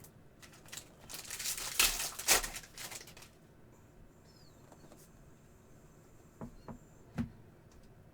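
Trading cards and a foil card-pack wrapper being handled: a crinkling rustle lasting about two seconds, then a few light taps near the end.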